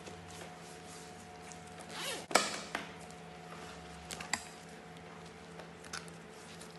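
Gloved hands handling a fabric backpack: a short rasp ending in a sharp snap about two seconds in, then a few light clicks as the bead-chain hang tag is handled, over a faint steady hum.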